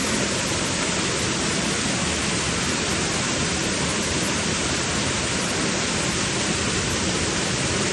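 Waterfall running steadily, a loud even rush of falling water.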